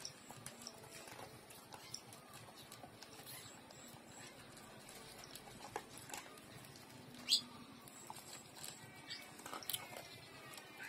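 Scattered soft clicks and crunches from a dog eating dry kibble out of a plastic bowl, mixed with the sounds of two puppies suckling; one sharper click comes about seven seconds in.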